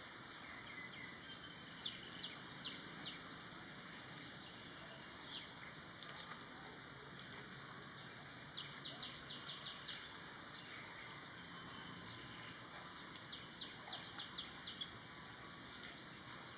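Birds chirping: many short, sharp, high notes that drop quickly in pitch, coming irregularly, every half second to a second or so, over a faint steady background hiss.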